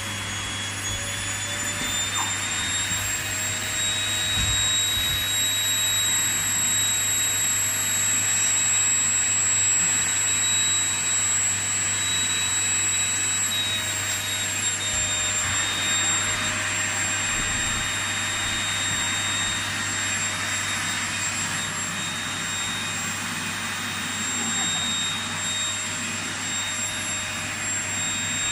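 Vacuum cleaner motor running steadily, a loud rushing noise with a constant high-pitched whine.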